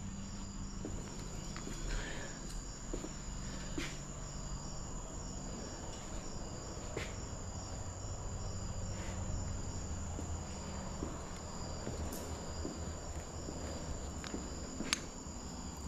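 Insects chirring steadily in one high, even tone, with a low hum underneath and a few faint scattered clicks.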